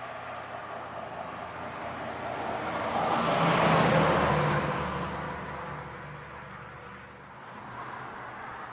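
A heavy truck passing at highway speed: tyre roar and a low engine hum swell to a peak about four seconds in, then fade as it moves away.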